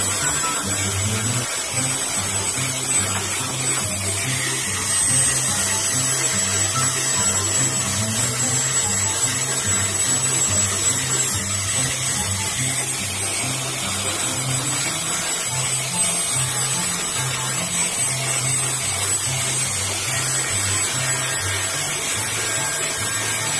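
Angle grinder with an abrasive disc running against a wooden bolo handle, sanding and shaping it with a steady high whine that wavers slightly. Background music with a repeating bass line plays throughout.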